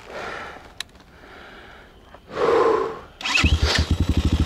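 Heavy breathing and a strained grunt from the rider, then the Kayo T4 enduro motorcycle's single-cylinder engine starts about three seconds in and settles into a steady, pulsing idle.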